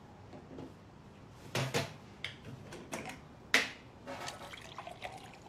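Breakfast-table clatter: a string of clinks and knocks of a spoon and crockery, the loudest knock about three and a half seconds in.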